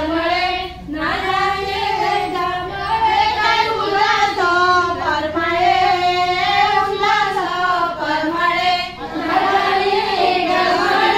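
A group of women singing a traditional Marathi fugadi song together, in phrases of a few seconds with a brief break about a second in and another near the end.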